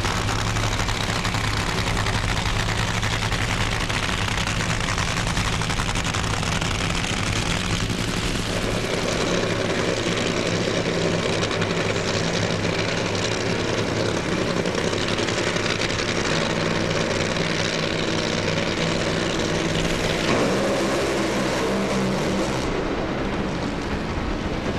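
Two supercharged nitromethane funny-car engines running on a drag strip, a loud continuous engine sound that changes pitch and character about eight seconds in and again about twenty seconds in. The pass is troubled: one engine has a cylinder out, and the cars go into tyre shake and are shut off early.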